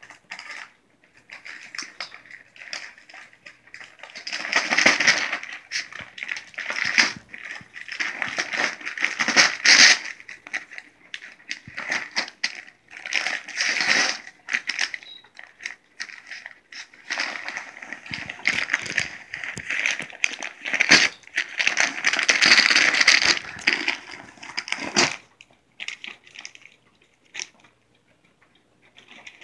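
A dog tearing wrapping paper off a present, in irregular spells of crinkling, rustling and ripping paper, with quieter gaps between and near the end.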